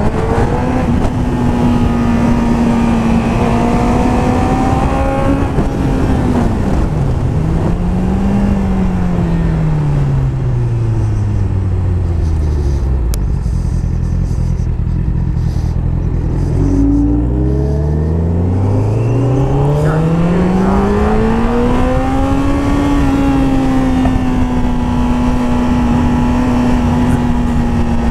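Sport motorcycle engine pulling at steady revs, then dropping in pitch over several seconds as it slows. It runs low for a few seconds in the middle, then climbs back up through the revs and holds steady, with wind rush throughout.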